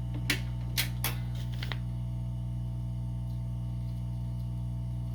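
Steady electrical hum from a vintage General Electric record player's amplifier, which the owner puts down to an ungrounded wire, with a few sharp clicks in the first two seconds as its switches and controls are worked.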